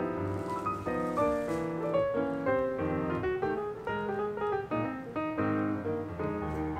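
Background piano music, a steady run of changing notes.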